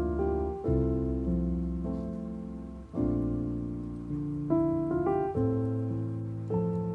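Background piano music: slow chords struck every second or two, each fading before the next.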